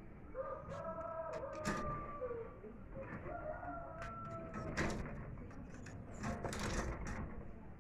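A rooster crows twice, two long wavering calls, over scattered sharp clicks and knocks.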